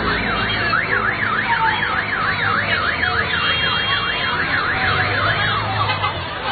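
Electronic siren warbling rapidly up and down, about three to four sweeps a second, over street crowd noise; it dies away about a second before the end.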